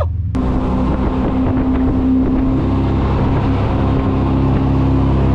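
Jet boat under way: its engine runs with a steady drone, over the rush of water and wind noise on the microphone.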